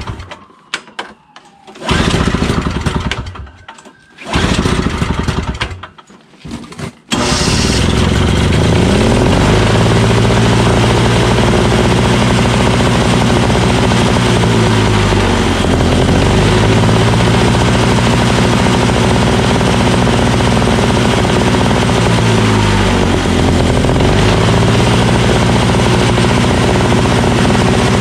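Tecumseh 5 hp engine on a Craftsman single-stage snowblower being cranked by its electric starter in two short bursts, then catching about seven seconds in and running steadily. Its speed sags briefly and recovers twice.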